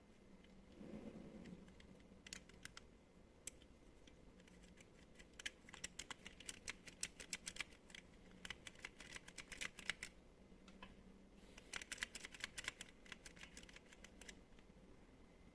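Faint, rapid clicking from hands handling small hard objects, coming in two bursts a few seconds long, with a brief low rumble near the start.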